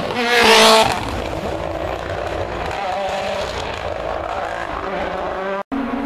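Rally car engine at high revs passing close by, loudest about half a second in, then rally engines revving and climbing in pitch through the gears further off. A sudden drop-out near the end, where the recording is cut.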